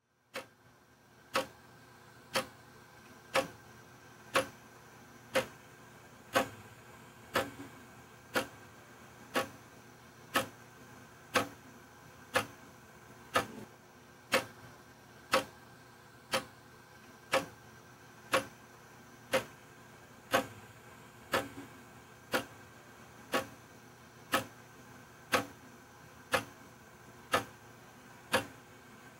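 A clock ticking steadily, about once a second.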